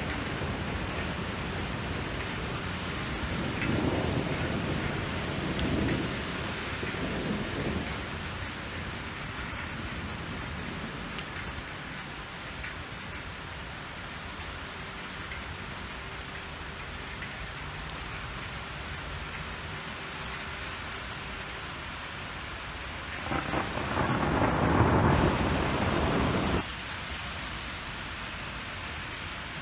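Hail and rain pelting down steadily, with many small sharp hailstone hits. There are low rumbles a few seconds in, and a much louder rumbling surge near the end that cuts off suddenly.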